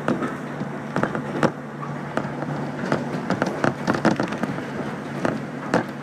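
Inside a JR 115 series electric train running between stations: a steady low hum under frequent, irregular clicks and rattles from the car body and the wheels on the track.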